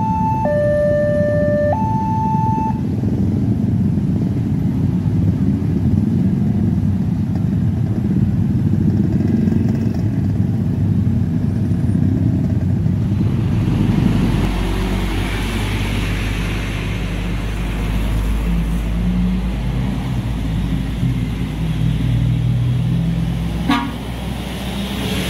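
Railway level crossing warning bell sounding a two-tone electronic ding-dong that stops about three seconds in, over the running engines of many waiting motorcycles. The motorcycles then move off across the tracks, followed by a heavy truck and cars passing with a deep rumble, with short horn toots.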